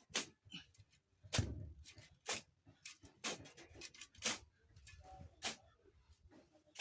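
A series of sharp knocks or scrapes, about one a second, with short quiet gaps between them.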